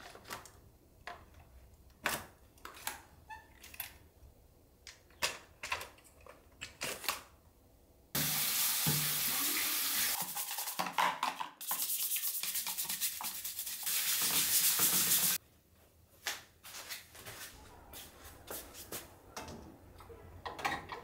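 Bathroom sink tap running as Dyson Digital Slim vacuum parts are rinsed under it, starting about eight seconds in and lasting about seven seconds with a brief break. Before and after the running water, short plastic clacks and knocks of the parts being handled.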